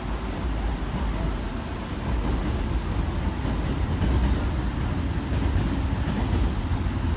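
Heavy rain falling steadily, an even hiss with a continuous low rumble underneath.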